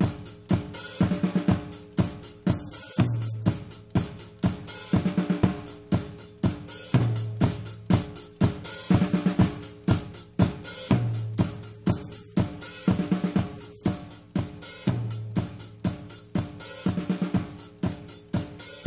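Recorded drum kit playing a steady, repeating groove of kick drum, snare and hi-hat, played back as audio to be compressed.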